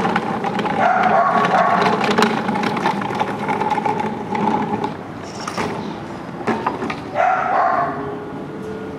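Dog whining and barking. A drawn-out whine starts about a second in and lasts about four seconds, with another short one near the end and sharp sounds scattered between.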